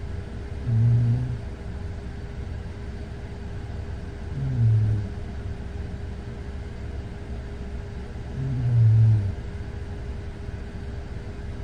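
A woman snoring in her sleep: three low snores about four seconds apart, over a steady background hum.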